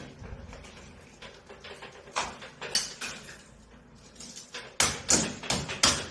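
Hammer strikes during home repair work: a few scattered blows, then a quick run of about three sharp knocks a second near the end.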